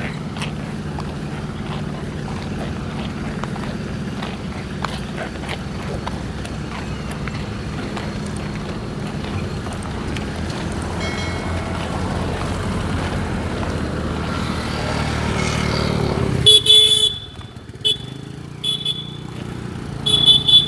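Motor vehicle engine running steadily and getting louder, until it stops suddenly about sixteen seconds in. Then a vehicle horn toots three short times.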